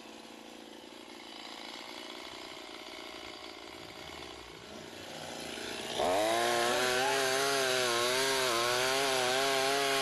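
Two-stroke chainsaw, faint at first; about six seconds in it suddenly turns loud, its pitch rising as the throttle opens and then wavering up and down as it revs.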